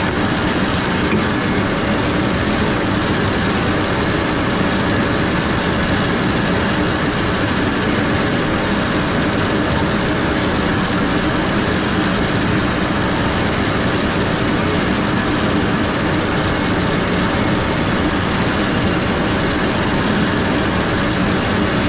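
Farm tractor engine running steadily, a loud, even drone that holds the same pitch throughout.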